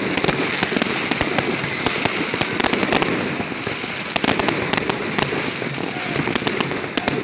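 Fireworks going off: many sharp bangs and crackles in quick succession, with no break.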